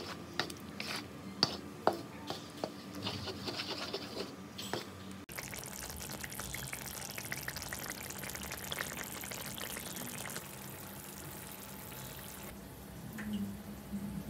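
A spatula scraping and clicking against the pan as a thick chilli sambal sauce is stirred. About five seconds in it changes abruptly to a steady hiss of the sauce bubbling as it simmers, which quietens near the end.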